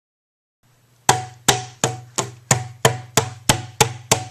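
A regular series of sharp knocks or strikes, about three a second, each dying away quickly, over a faint low hum that starts just before them.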